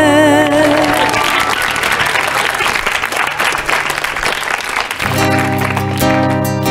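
A sung note with wide vibrato ends about half a second in, followed by studio audience applause for about four seconds. About five seconds in, a guitar and sustained band chords start the next song as the applause fades.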